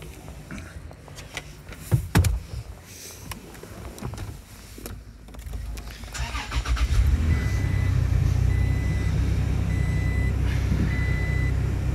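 Two loud knocks about two seconds in, then a 2016 Toyota Tacoma's engine is started a little past halfway and settles into a steady idle, heard from inside the cab. A dashboard chime beeps four times, about once a second, over the idle.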